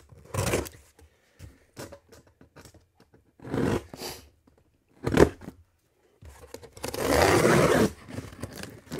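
Knife slitting the tape on a cardboard shipping box in a few short scraping strokes, then a longer, louder tearing sound near the end as the box is opened.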